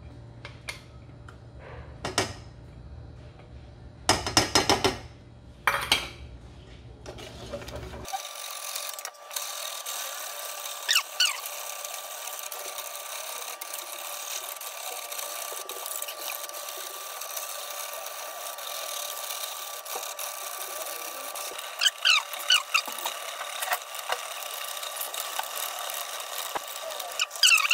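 Wire whisk beating a thick custard in a stainless steel pot, the metal wires scraping and clicking against the pot's sides and bottom again and again. A steady hiss sets in about eight seconds in.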